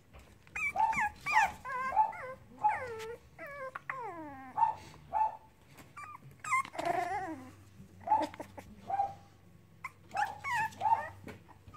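Cavalier King Charles Spaniel puppies whimpering and yipping in a string of short high calls, several sliding down in pitch, with a louder cry about seven seconds in.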